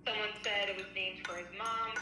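A woman's voice singing a tune in held notes that glide between pitches.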